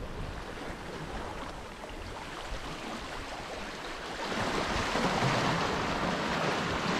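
Sea surf washing against the rocks, with a wave surging in about four seconds in and louder after that.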